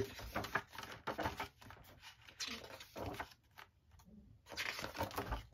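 Paper rustling and sliding as the pages of an album's photo book are handled and turned, in a run of short scuffs with a brief lull a little past the middle.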